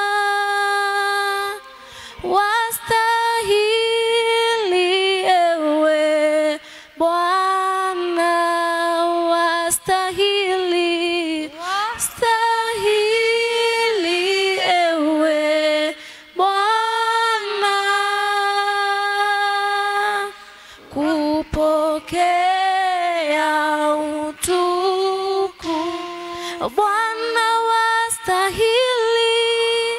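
Women singing a slow worship song unaccompanied, in long held notes that bend up and down, with short breaths between phrases.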